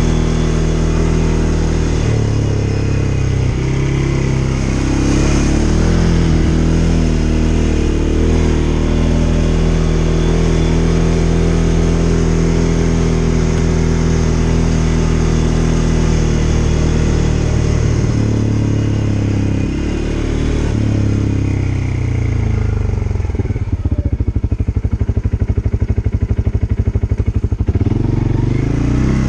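CFMoto CForce ATV engine running under changing throttle while riding a dirt trail, its pitch stepping up and down. For a few seconds near the end it drops to a low, rapid, even pulsing.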